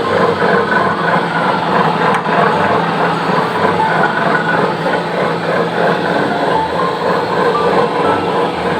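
Meatball grinding machine running with a steady, loud mechanical noise.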